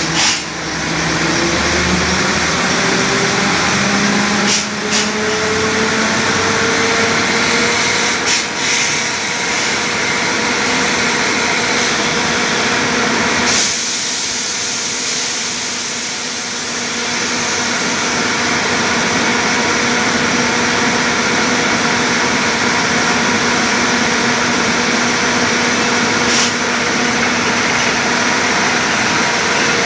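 Borewell drilling rig running with its air compressor: steady, loud machine noise with an engine note that rises in pitch over the first few seconds, then holds. The level eases off for a few seconds around the middle before returning.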